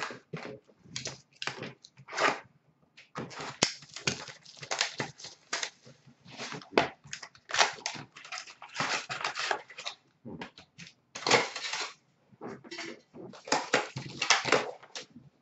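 Trading card pack wrappers being torn open and crinkled by hand, with the cards handled and shuffled, in a run of irregular rustling and crackling bursts with short pauses.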